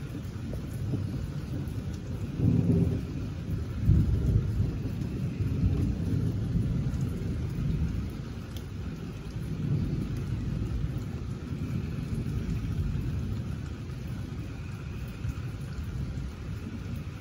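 Thunder rumbling: a louder roll builds a couple of seconds in and peaks about four seconds in, then a long low rumble that slowly eases off.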